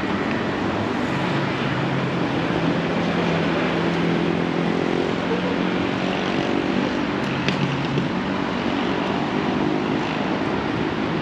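City street traffic: a steady wash of road noise, with one vehicle's engine running at an even pitch through most of it, dropping away near the end.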